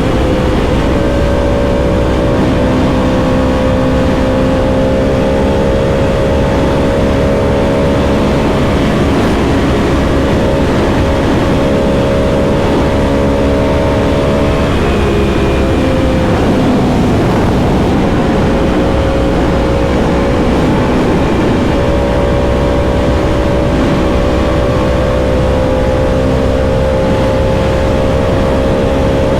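The 2021 Yamaha R1M's crossplane inline-four engine running at a steady pull, its note climbing slowly. About halfway through the note drops and wavers for a few seconds, then settles and climbs slowly again.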